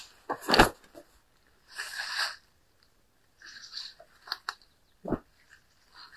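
A bundle of gear set down on a wooden plank table with a thud about half a second in, then fabric rustling as clothing is laid on top, with a couple of sharp clicks and a second dull thump near the end.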